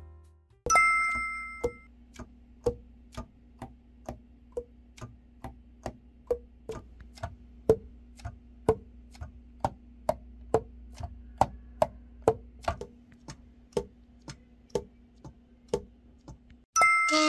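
Yamaha YAS-62 alto saxophone keys pressed and released during a leak test, the pads tapping shut on the tone holes in short clicks about twice a second over a faint steady low hum. A sharp ringing hit comes about half a second in.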